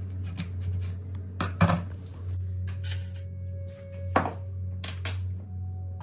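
Background music over a handful of sharp kitchen knocks and clinks, the loudest about one and a half seconds in: a knife striking a wooden cutting board as a raw turkey is cut, then a stainless steel mixing bowl being handled.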